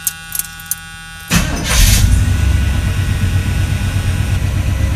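A dash warning buzzer sounds steadily with the ignition on. About a second and a half in, the 1981 Chevrolet C10's starter cranks briefly, then the engine catches and settles into a steady idle.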